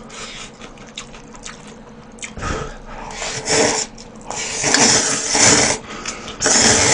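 A person slurping noodles from a bowl: three long, noisy slurps in the second half, with softer mouth and utensil clicks before them.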